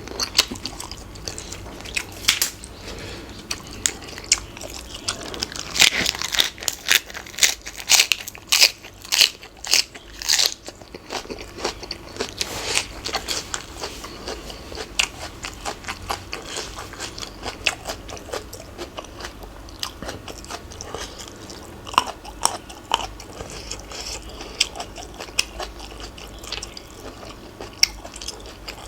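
Close-up eating sounds: crunchy bites and chewing of som tam and its raw vegetables, with a quick run of loud crunches in the first half, then slower, softer chewing.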